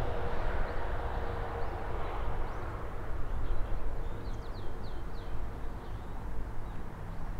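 Outdoor ambience: a low, steady rumble with a few short bird chirps about four to five seconds in.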